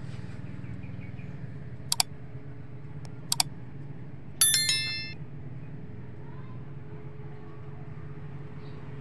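Sound effects of a subscribe-button animation: two quick double mouse clicks about a second and a half apart, then a bright bell ding that rings out briefly. A steady low hum runs underneath.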